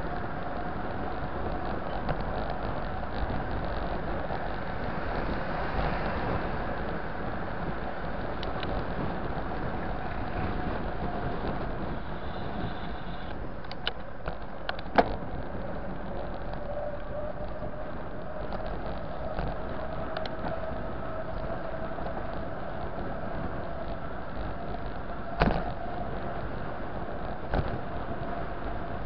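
Steady rolling noise of a bicycle ridden fast on city asphalt, with wind on the microphone and tyre hum. A couple of sharp knocks stand out, the loudest about halfway through and another a few seconds before the end.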